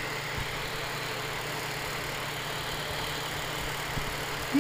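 Small electric fan heater running on high heat: its freshly oiled fan motor gives a steady hum and the rush of air through the grille. A short, louder blip comes right at the end.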